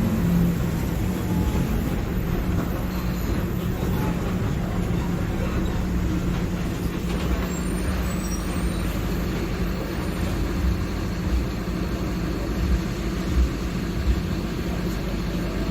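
Diesel engine of a Mercedes-Benz OF-1721 Bluetec 5 bus chassis running steadily with a low, even drone, with a few short thumps near the end.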